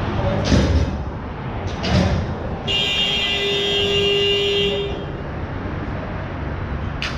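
Rink horn sounding one steady blast of about two seconds, beginning nearly three seconds in, after two sharp knocks in the first two seconds.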